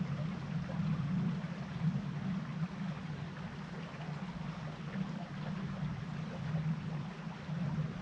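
River water flowing steadily, an even rushing with a strong low rumble and no breaks.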